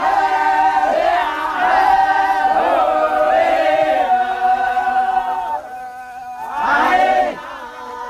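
A crowd of men chanting together, many voices holding long wavering notes. It drops back briefly past the middle, then breaks into a short loud shout near the end.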